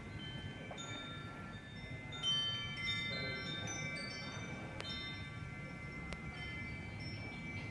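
Wind chimes ringing: many high, clear notes struck at irregular moments and ringing on over one another, the loudest strike about two seconds in, over a low steady rumble.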